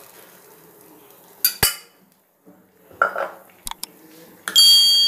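Metal utensils clinking against a steel kadai: a few sharp clinks, then a louder strike about four and a half seconds in that leaves a ringing tone.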